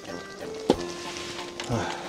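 A pot of oyster misua being stirred as it cooks, with a sharp utensil click about two-thirds of a second in and a short scraping rustle near the end, under background music with held notes.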